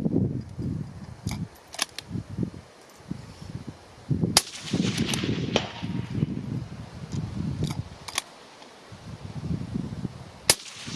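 Two rifle shots from a Tikka T3X bolt-action rifle, about six seconds apart, the second the louder, each a sharp crack with a short ring after it.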